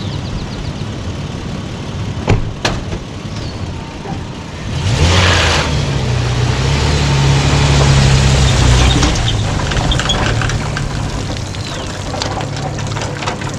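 Two sharp knocks, then a pickup truck's engine pulling away under load as it hauls an empty boat trailer up a concrete slipway. The engine is loudest in the middle and eases off near the end.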